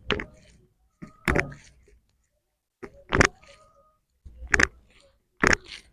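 Five sharp slaps or thumps, spaced roughly a second apart, from hands striking the body during a chiropractic spine adjustment.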